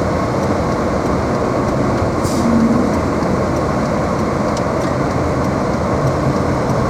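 Steady engine and road noise heard inside a car's cabin as it drives on snowy streets, with the heater fan blowing.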